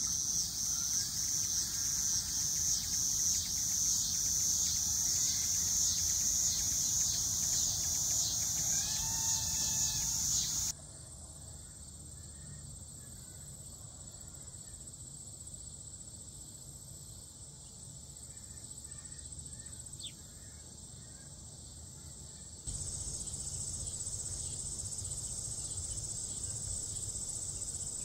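Steady outdoor insect chorus, a high shrill that pulses in the first ten seconds. It drops suddenly about ten seconds in and comes back near the end. A few bird calls come about nine seconds in, with faint chirps in the quieter middle.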